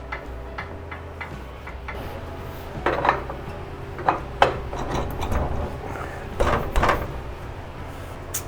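Schwinn 470 elliptical ticking evenly, about two to three clicks a second, once per turn of the machine; the owner suspects a bearing. The ticking stops a little over a second in, followed by several knocks and clunks of parts being handled and a sharp click near the end.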